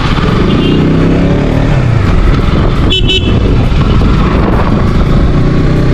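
KTM RC125's single-cylinder engine pulling away, rising in pitch over the first two seconds as it accelerates, with wind rumble on the helmet microphone. A brief high double beep about three seconds in.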